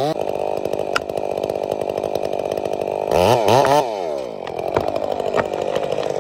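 Stihl chainsaw running steadily, revved up hard twice a little past halfway, then settling back to a steady lower speed.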